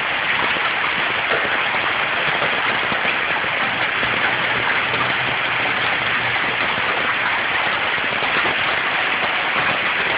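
Hail falling steadily: a dense, even patter of hailstones striking surfaces.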